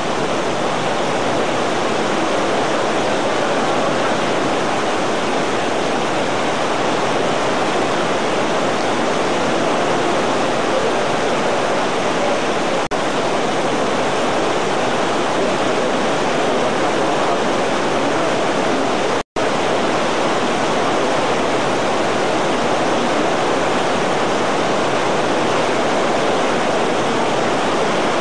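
Heavy tropical downpour: a loud, steady hiss of torrential rain. The sound cuts out for an instant about two-thirds of the way through.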